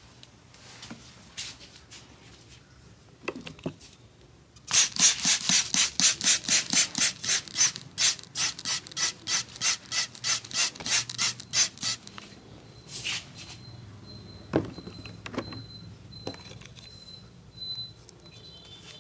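Massage strokes of hands rubbing briskly and rhythmically on skin, about three a second for some seven seconds, starting about five seconds in; a few scattered single rubs come before and after.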